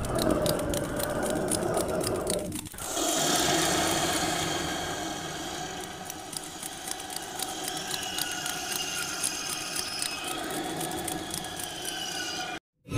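Cartoon sound effect of rapidly beating insect wings: a fast, steady whirring clatter. It dips briefly about two and a half seconds in and cuts out just before the end.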